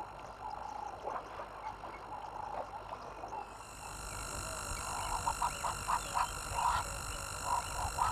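Frogs croaking in short, repeated calls, several a second from about four seconds in. A steady high hiss comes in about three and a half seconds in.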